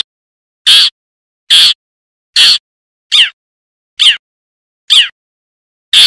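Long-tailed shrike (cendet) lure call: short harsh calls repeated evenly a little more than once a second, some with a quick falling sweep. It is a trapping call played to draw in wild shrikes.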